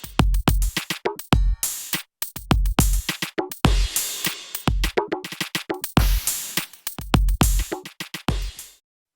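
Millenium MPS-750 mesh-head electronic drum kit played through its sound module: a drum groove with kick, snare and cymbals, with a short break about two seconds in. The playing stops shortly before the end.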